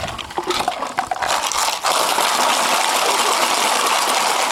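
Homemade shakers, plastic bottles each holding ten stones, rattled by a group of children. Scattered rattles at first, then from about two seconds in a dense, steady rattle as they all shake together.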